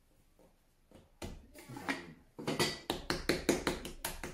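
Quick, regular taps, about five a second, of a ball of bread dough being rounded under the palm on a granite countertop. They start about two and a half seconds in, after a near-quiet stretch with a few soft knocks.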